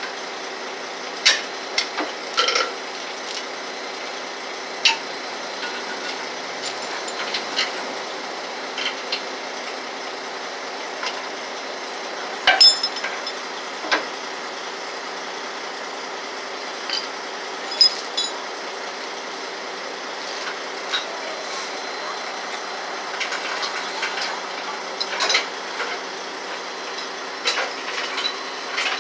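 Steel tow chains and rigging clinking and clanking in scattered sharp strikes, a few louder clanks standing out around the middle, over the steady hum of a heavy tow truck's idling engine.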